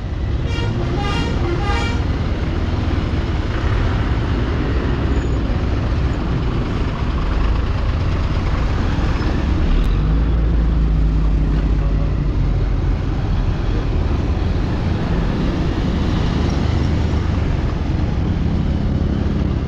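Motorcycle engine running as it is ridden over a rough, rutted dirt road, with heavy wind rumble on the microphone. A deeper rumble swells around ten seconds in as a bus passes close alongside.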